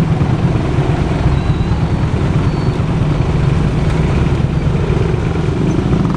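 Chopper-style motorcycle engine idling steadily at a standstill, a dense, rapidly pulsing low rumble.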